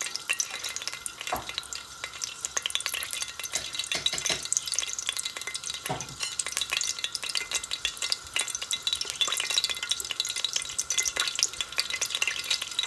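Olive oil and ghee heating in a steel pot, sizzling with a dense, steady crackle of tiny pops.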